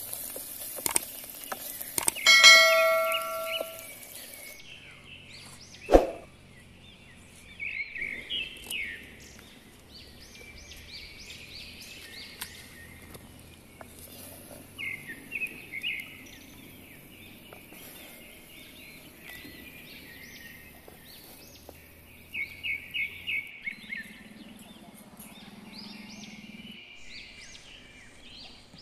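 Birds chirping and calling in short repeated phrases, with a few sharp knocks, the loudest about six seconds in, and a brief ringing clink a couple of seconds in.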